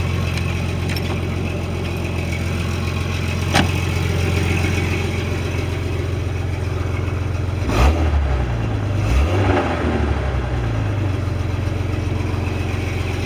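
2001 Jeep Cherokee engine idling steadily, with one sharp click a few seconds in and a thump just before the engine revs briefly and settles back, about eight seconds in. This is the engine suspected of rod knock, running with its flex plate bolts freshly tightened; no knock was heard at start-up, and some of the noise has gone.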